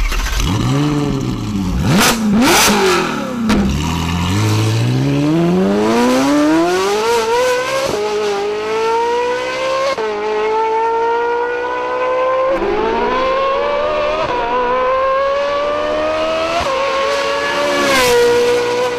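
Ferrari 458's high-revving flat-plane-crank V8 blipped a couple of times, then accelerating hard through the gears: each gear's pitch climbs into a high screaming whine and drops sharply at several quick upshifts.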